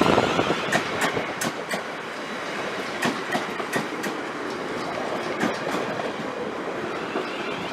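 A train passing, its wheels clicking unevenly over rail joints, loudest at first.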